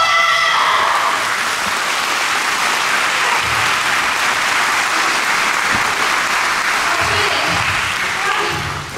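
Audience in a hall clapping steadily, the applause dying down near the end. A shout over the microphone trails off as it begins.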